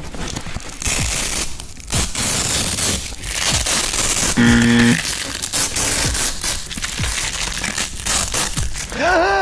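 A long flat green strip being twisted, scrunched and crumpled by hand, making a dense, close crackling and crinkling. A short pitched squeak comes about halfway through, and a voice is heard near the end.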